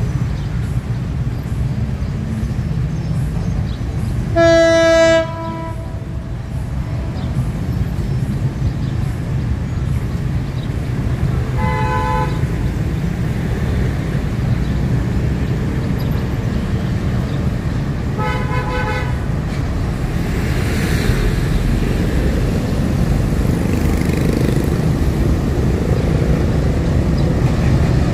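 A diesel locomotive runs with a steady low rumble that slowly grows louder. It sounds its horn: one loud blast of about a second roughly four seconds in, then two shorter, fainter toots later on.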